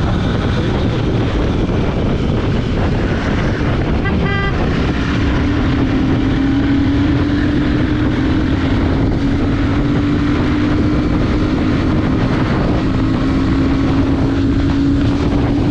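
Heavy wind buffeting on the microphone over a Royal Enfield Super Meteor 650's 648 cc parallel-twin engine pulling hard at road speed. After a brief break about four seconds in, the engine holds a steady drone that slowly climbs in pitch.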